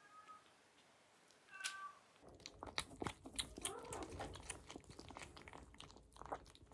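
Two faint, short mews from a very young kitten. Then, from about two seconds in, two kittens eating from a foil tray: a rapid run of wet chewing and smacking clicks, with a brief wavering kitten vocal sound mixed in partway through.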